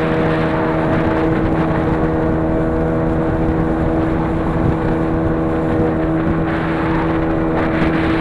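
An engine running steadily at a constant speed, with a rushing noise of water or wind over it.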